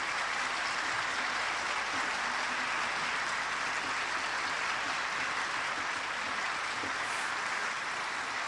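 Audience of conference delegates applauding steadily.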